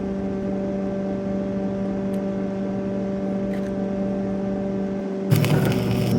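Plasma cutter at work on steel: a steady machine hum, and about five seconds in the torch fires with a hissing rush of air and arc that makes the sound louder.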